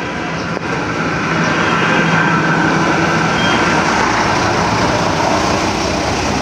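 Philippine National Railways passenger train passing close by, with a steady engine drone under the rolling noise of its wheels. The sound grows louder about one and a half seconds in.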